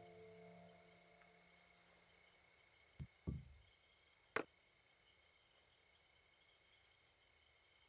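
Quiet room tone with a faint steady high-pitched background tone, as a soft sustained musical chord fades out. About three seconds in come two soft thumps, then a sharp single knock of a glass set down on a wooden side table.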